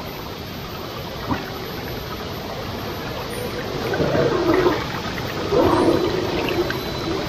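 Shallow stream rushing over rocks close to the microphone. About four seconds in, a 1/10 scale RC crawler wearing a Toyota Land Cruiser VX80 body drives through the water past it, its tyres churning and splashing in two louder surges.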